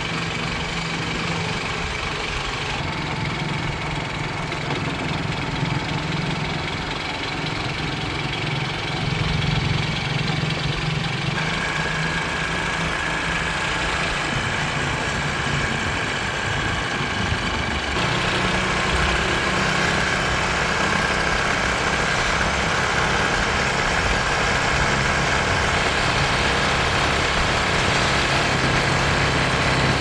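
Small motorcycle engine running steadily under way on a paved road, its pitch shifting twice.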